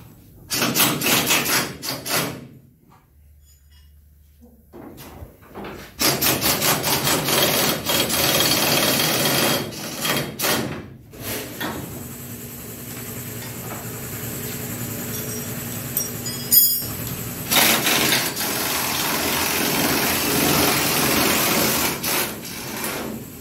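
Pneumatic wrench on an air hose running in bursts of a few seconds with short pauses between, loosening the bolts that hold the rotisserie's mounting arms to a car body shell.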